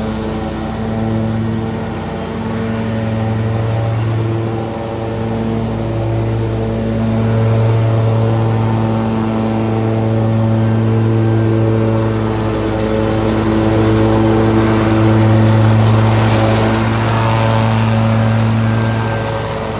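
Exmark X-Series zero-turn mower running steadily while mowing wet grass, a continuous engine drone that swells and eases slightly as the mower moves.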